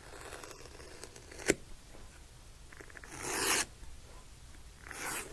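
Swivel knife cutting through vegetable-tanned saddle skirting leather: a sharp click about a second and a half in, then two short scratchy cutting strokes, one about three seconds in and one near the end.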